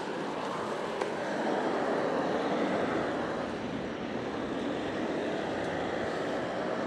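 Steady rushing noise of riding a bicycle: wind over the microphone and tyre noise on the path.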